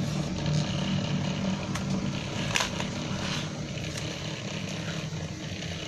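A few light clicks of the laptop's battery latch being slid and the battery pulled out, over a steady low hum.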